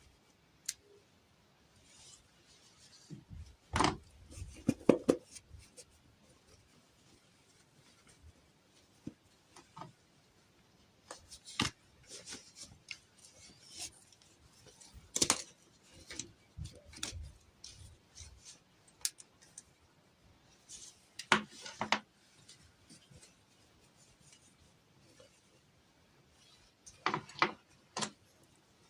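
Close-up handling sounds of toy packaging being opened: sharp clicks, snips and short rustles of plastic and cardboard, coming in clusters a few seconds apart with quiet gaps between.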